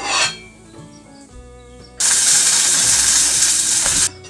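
Background music with a clink of kitchen utensils near the start; about two seconds in, a loud sizzle of food frying in a hot pan starts suddenly and cuts off about two seconds later.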